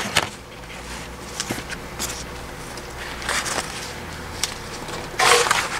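Rolled printed canvas sheet being unrolled and smoothed by hand: scattered rustles and light taps, with a longer, louder rustle near the end.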